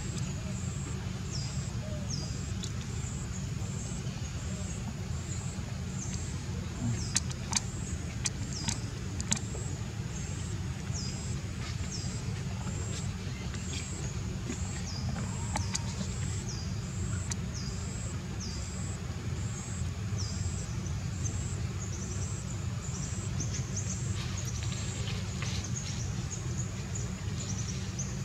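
Outdoor ambience: a steady low rumble under a short, high chirp with a falling tail, repeated over and over, and a few sharp clicks about a third of the way through.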